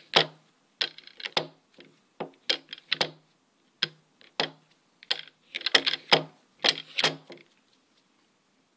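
Banging around: irregular knocks and clicks of a Glock 26 pistol and the phone filming it being handled and bumped on a wooden tabletop. They stop about a second before the end.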